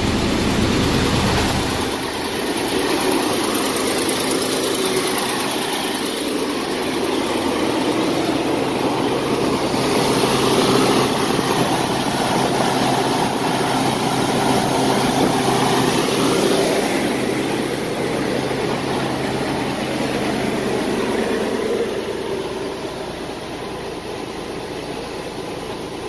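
Diesel semi truck engine running steadily during a forced exhaust regen, with the cooling fan going, the engine held at raised idle to heat the exhaust aftertreatment. It is a little quieter near the end.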